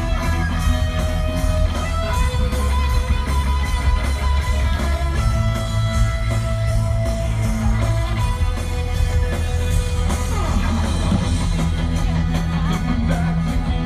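Live rock band playing loudly, an electric guitar leading over bass and a steady drum beat, with no vocals.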